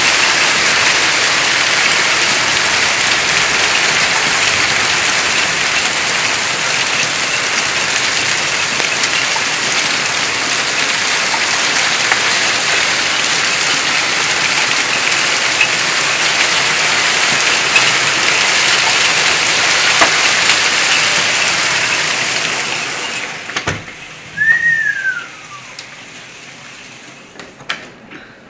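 Heavy rain mixed with hail pouring down in a dense, steady hiss. Near the end it drops away suddenly, followed by a short falling squeak and a few clicks.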